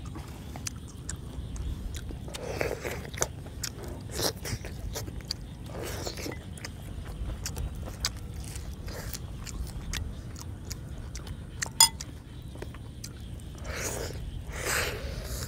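Close-miked chewing and biting of boiled pig's cheek meat, with many small sharp mouth clicks and one louder click about twelve seconds in.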